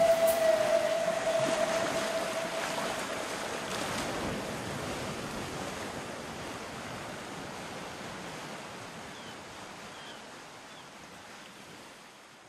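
A held musical note dies away about a second in, leaving an even rushing noise like surf or wind that fades out slowly and steadily to silence.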